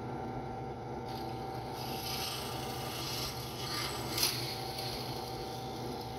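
Drill press running steadily while its bit is fed down through an iPhone 5s from the back, through the metal back cover and the screen, with a rough grinding scrape in the middle and one sharp snap about four seconds in.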